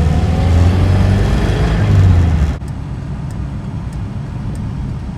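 Car interior driving noise: a steady low engine and road rumble. About two and a half seconds in, it drops abruptly to a quieter rumble.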